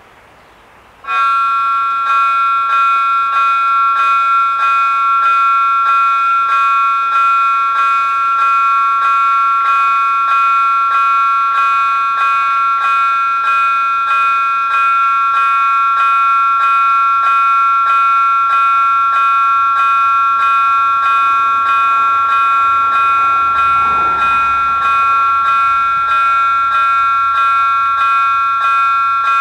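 Level-crossing warning bells start ringing about a second in and keep up a steady, rapid, evenly repeated chime as the crossing activates for an approaching train.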